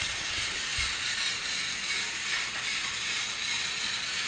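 Battery-powered motorized toy trains running steadily on plastic track, their small gear motors giving a continuous mechanical whir.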